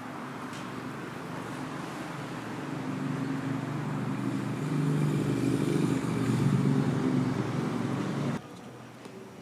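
A motor vehicle's engine on a city street, growing louder as it draws close over several seconds, then cutting off abruptly near the end.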